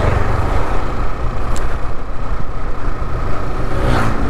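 Wind rumble on an action camera's microphone during a motorcycle ride at road speed, with the bike's running noise beneath it. There is a brief pitched sound near the end.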